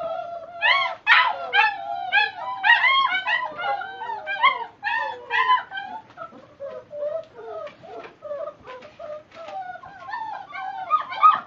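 A litter of five-week-old black German Shepherd puppies whining, yipping and howling together in many overlapping high calls: hungry pups waiting to be fed. The calls grow sparser about halfway through.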